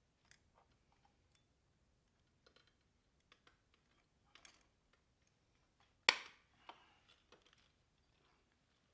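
Scattered light clicks and taps of hand tools working on the spokes of a motorcycle wheel, with one sharp metallic clack about six seconds in.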